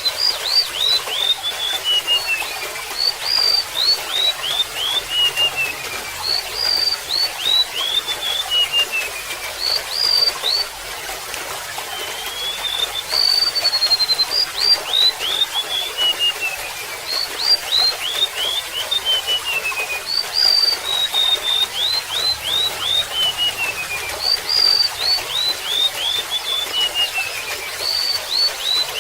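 Golden-bellied gerygone singing its song over and over, a phrase about every three to four seconds: a high whistle followed by a run of short down-slurred notes that step lower and trail off. A steady trickle of water runs underneath.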